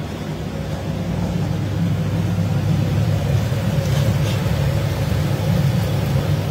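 Steady low rumble of a kitchen chimney hood fan over the stove, growing louder over the first couple of seconds, while a steel ladle stirs spice paste frying in oil in a kadai, with faint scrapes about four seconds in.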